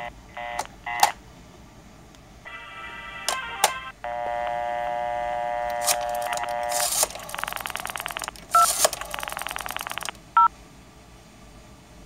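Telephone line sounds heard through a phone receiver: short repeated tone beeps, clicks of a rotary phone's hook switch, then a steady vintage dial tone. As the Western Electric 302's rotary dial is turned, a rough buzzing tone follows, broken by loud clicks and a few brief DTMF beeps that the analog telephone adapter makes when it converts the dial pulses.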